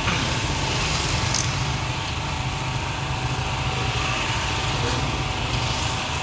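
A steady low engine-like hum over a constant street background, with no clear starts or stops; a faint click about a second and a half in.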